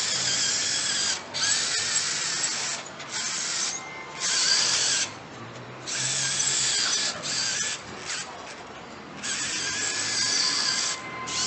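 Small electric gear motors of a metal-kit robot car whirring in short runs, starting and stopping several times, a whining hum with gear noise.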